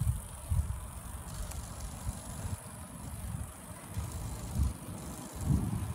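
Wind buffeting a phone microphone on a moving bicycle: low, irregular rumbling gusts over a faint steady hiss.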